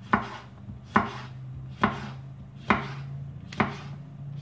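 Chef's knife chopping cucumber on a wooden cutting board: five even, sharp knocks about a second apart as the blade cuts through each slice and strikes the board.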